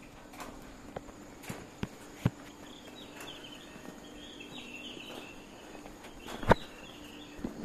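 Footsteps walking on a concrete station platform, with a few sharper taps, over a steady low hum. Faint high chirping comes through in the middle.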